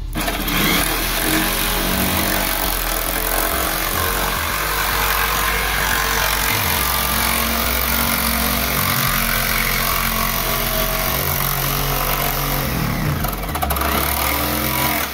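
Ryobi corded jigsaw running and cutting through a fiberglass fender, loud and steady, with a brief dip near the end before it cuts off suddenly.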